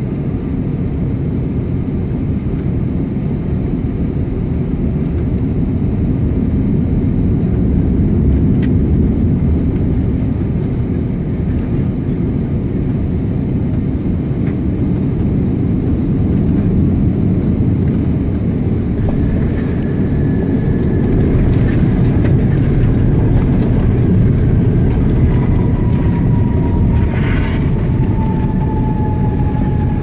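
Airliner cabin noise: a steady, loud rumble of engines and airflow. From about two-thirds of the way through, a thin whine comes in and slowly falls in pitch.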